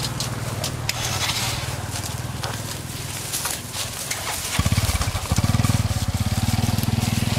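A small engine running steadily with a fast, even pulse, getting louder about four and a half seconds in, with crackling of dry leaves underfoot.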